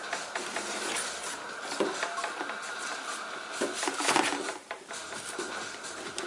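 Handling noise from computer parts being fitted: scattered small clicks and taps with a rustling hiss, and a louder knock about four seconds in.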